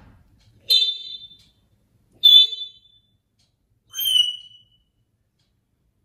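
African grey parrot giving three short, high whistled calls, each well under a second, spaced about a second and a half apart, with a beeping, electronic-alarm-like quality.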